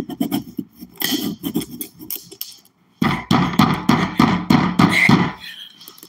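A large kitchen knife sawing and hacking at a plastic water bottle packed solid, in repeated rough scraping strokes. The strokes are lighter at first, then come in a faster, louder run from about three seconds in until near the end.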